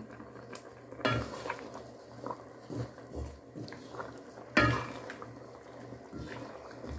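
Wooden spoon stirring chicken feet in thick curry sauce, knocking and scraping against the side of a metal pot. Two louder knocks with a short ring come about a second in and about four and a half seconds in, with softer knocks between.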